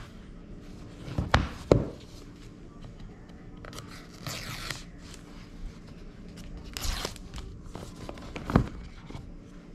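Paper pull tabs of an iPhone box being torn off: two ripping sounds, about four and seven seconds in. A few sharp knocks come from the cardboard box being handled.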